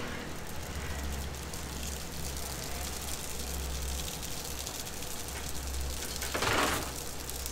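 Steady low hum with a faint hiss from kitchen equipment at a potsticker griddle, and one short, louder rushing noise about six and a half seconds in.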